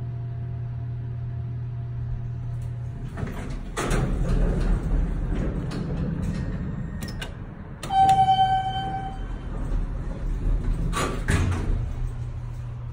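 Hydraulic elevator car doors sliding shut, then a low rumble as the car starts moving up, over a steady low hum. A single steady electronic beep about a second long sounds partway through, and a brief clatter follows near the end.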